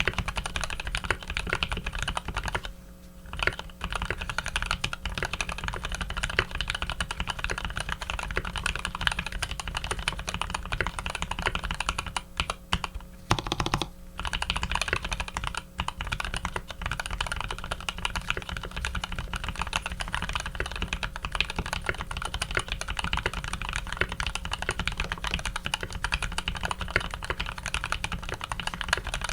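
Fast, continuous typing on a custom Eo87 mechanical keyboard with Cherry Top H1 switches, PBT keycaps and an aluminium plate. The keys are lubed and the stabilisers tuned. The typing pauses briefly about three seconds in and again around the middle.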